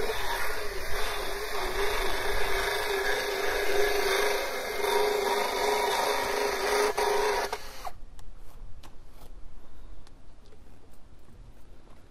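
Motorized dental float grinding an Arabian horse's teeth, filing down uneven edges: a steady whirring grind that stops abruptly about seven and a half seconds in, followed by a few faint clicks.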